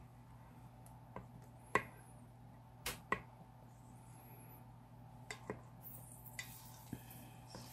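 A spoon knocking against an Instant Pot's stainless steel inner pot while stirring cranberry sauce: irregular clicks, the loudest about two seconds in, over a steady low hum.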